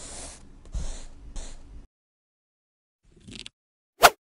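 Pen nib scratching across paper in a few quick strokes, then about a second of silence, a brief faint rustle, and near the end one short, sharp whoosh that is the loudest sound.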